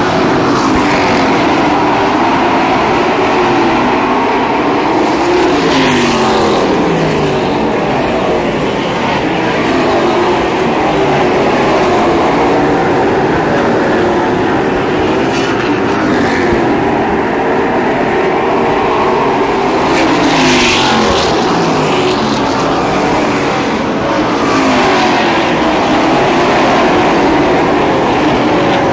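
A pack of Outlaw Super Late Model stock cars racing around an oval, their V8 engines running hard without a break. The engine pitch rises and falls as the cars pass and go into the turns, with the loudest passes about six seconds in and again about twenty seconds in.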